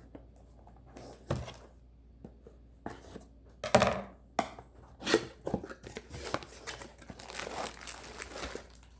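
Packaging being torn and crinkled during an unboxing, irregular rustling with scattered sharp knocks as items are handled.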